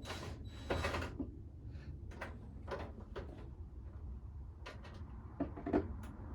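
Scattered knocks, clicks and scrapes of washing-machine parts being handled, with a short rustling scrape near the start and a couple of sharper knocks about five and a half seconds in, over a low steady hum.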